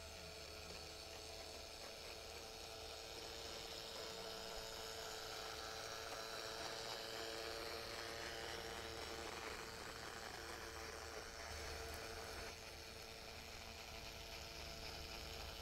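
Small garden-railway model train running on outdoor track: a faint whir and rolling of wheels on rails that grows as it passes, loudest about eight seconds in, then fades, over a steady low hum.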